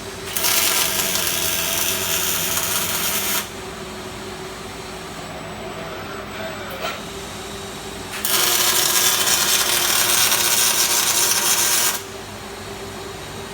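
Robotic Fronius CMT (cold metal transfer) MIG welding on steel tube: two arc runs, one of about three seconds starting just after the beginning and one of about four seconds from about eight seconds in, each a loud, steady hiss that starts and stops abruptly. A steady machine hum sits underneath.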